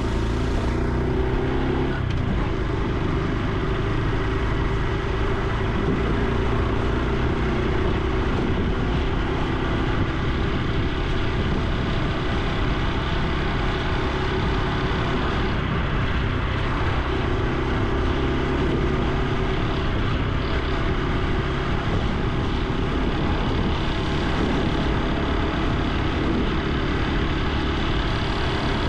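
Honda Super Cub C125's small single-cylinder engine and exhaust running under way while riding, its note shifting up and down now and then with changes of speed, over a steady rush of road and wind noise.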